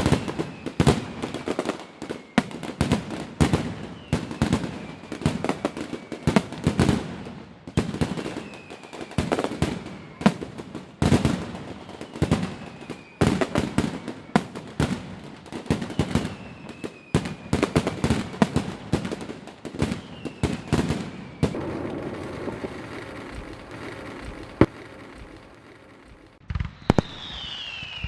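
Fireworks display: a rapid run of bangs and crackling shell bursts, with short falling whistles about every two seconds. The bangs ease into a quieter spell of crackle about three quarters of the way through, then start again near the end with a louder falling whistle.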